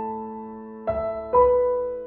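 Slow, gentle piano music: single notes and chords struck twice, each left to ring and fade away.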